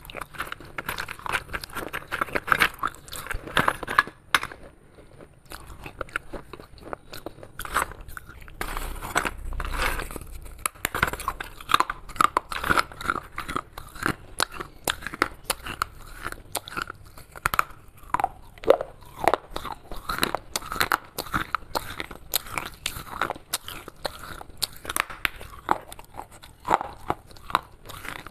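A person biting and chewing broken clay shards: dense, irregular crunching and crackling, easing off for a few seconds about four seconds in, then picking up again.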